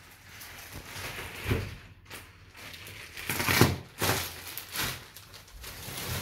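Plastic shrink-wrap around a rolled mattress rustling and crinkling as the roll is handled, with three louder bouts of crackling, the loudest about halfway through.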